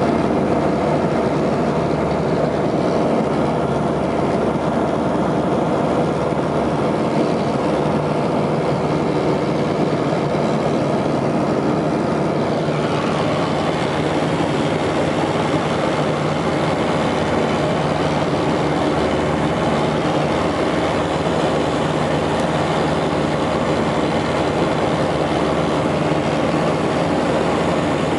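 A loud, steady mechanical drone, like an engine running, with a slight shift in tone about twelve seconds in.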